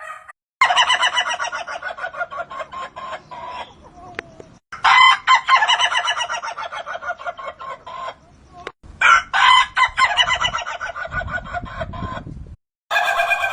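Ayam ketawa rooster crowing its long, rapidly stuttering 'laughing' crow three times, each call fading out over a few seconds, with a fourth crow starting near the end.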